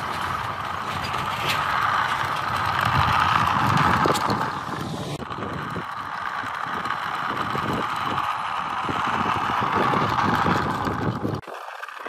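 Motorised wooden model car driving on rough asphalt: a small electric motor's steady whir with the crackle of its wheels rolling over the grit. The sound cuts off abruptly near the end.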